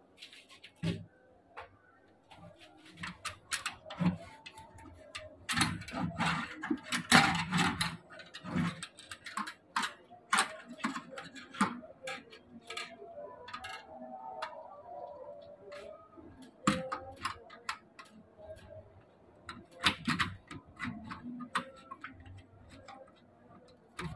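Irregular clicks, taps and light knocks of hands handling a door lock and an aluminium window frame and sill, scattered through the whole stretch rather than in a steady rhythm.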